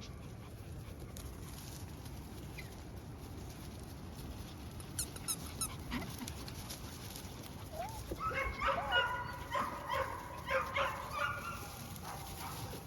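Collie puppies yipping and whining in short, high-pitched bursts, mostly clustered about eight to eleven seconds in, after a stretch of low background noise with a few faint clicks.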